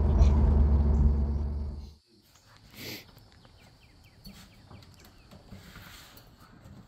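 The LS V8 engine in a 1972 Chevrolet Monte Carlo runs with a steady low drone, heard from inside the cabin while driving. It fades out about two seconds in. What follows is faint outdoor background with a brief hiss about a second later.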